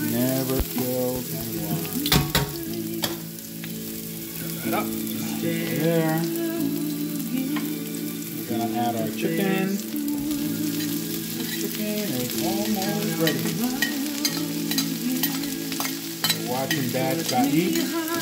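Sliced onions and jalapeño pieces sizzling in a nonstick frying pan, stirred with metal tongs that click against the pan now and then; partway through, cooked chicken pieces are pushed in off a plate. Music plays underneath.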